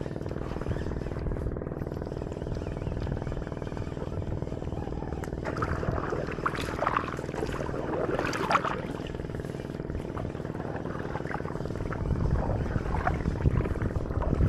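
Engine of a motorized bangka, a small outrigger boat, running at a steady speed: an even, low drone.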